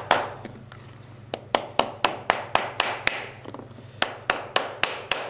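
Light taps on a small-engine carburetor to work a stuck part loose. The sharp taps come in two quick runs of about four a second, with a pause of about a second between them.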